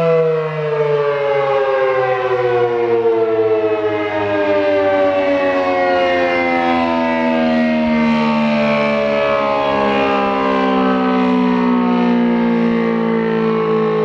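A.C.A. P-10 rotating outdoor warning siren, reverse-wired, sounding loudly. Its high steady note falls steadily in pitch over about ten seconds, then levels off lower and keeps sounding.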